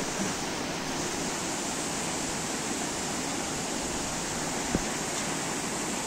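Fast-flowing spring-fed stream rushing over small cascades: a steady, even rush of water, with one brief faint click about three-quarters of the way through.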